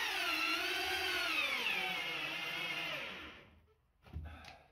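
Makita cordless drill driving a long screw into a timber stud frame: the motor whine starts suddenly, wavers, then sinks in pitch and dies away after about three and a half seconds as the nearly flat battery gives out under the load. A couple of short soft knocks follow near the end.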